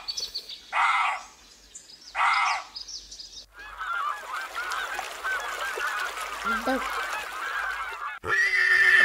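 Three short hoarse animal calls, then a flock of geese honking and cackling over one another for several seconds. Near the end, a horse's loud neigh starts.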